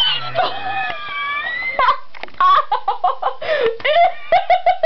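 A young woman laughing hysterically in shocked disgust: a long high squeal in the first two seconds, then rapid short bursts of laughter near the end.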